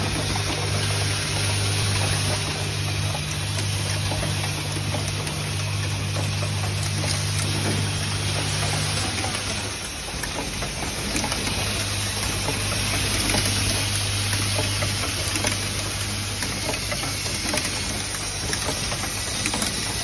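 Automatic hinge assembly machine running: a steady electric hum under a constant hiss and whir of the machinery, with faint light clicks. One of the hum tones stops about nine seconds in.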